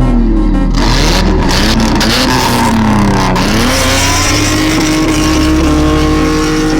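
Car engine revving hard, its pitch swinging up and down several times, then holding steady at high revs from about four seconds in, as in drifting.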